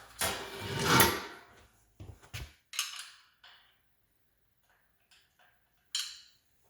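A scraping, rattling swell of tools and hardware working at a fan-cage mounting screw on a Schwinn Airdyne air bike, followed by a few short knocks.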